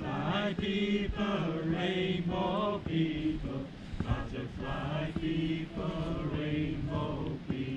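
A group of people chanting together, several voices holding long sung notes.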